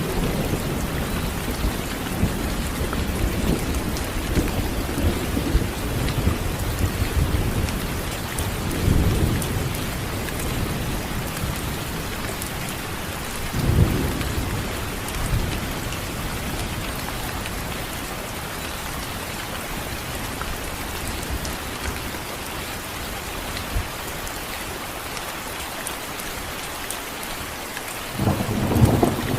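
Thunderstorm: steady heavy rain with rolls of thunder, the loudest rumbles about nine and fourteen seconds in, quieter stretches between, and another roll starting just before the end.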